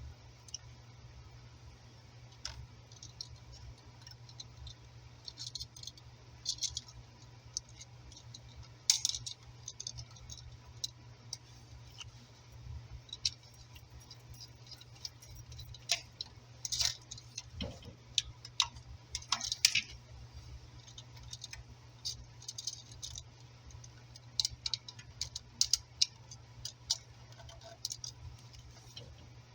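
A screwdriver and copper wire clicking and scraping against the metal screw terminals of a 120 V wall receptacle as the neutral wires are hooked under the screws and tightened. Irregular sharp clicks and light metallic rattles, over a steady low hum.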